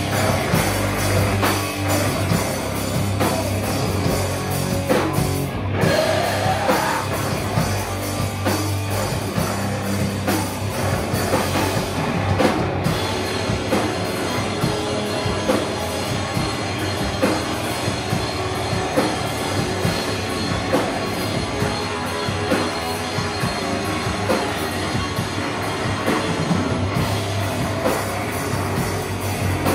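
A rock band playing loud live: drum kit and guitars going without a break, with a rising slide about six seconds in.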